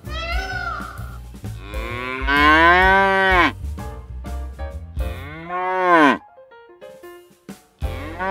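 A cow mooing twice, two long calls about three seconds apart, each rising and then dropping away at the end.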